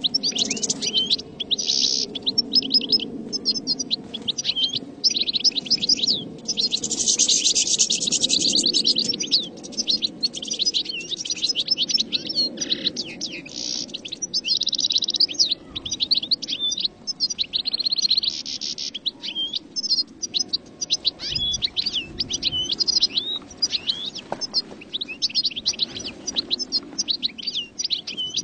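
European goldfinches singing: fast runs of high, tinkling twitters, one after another with only brief gaps, over a low steady rumble.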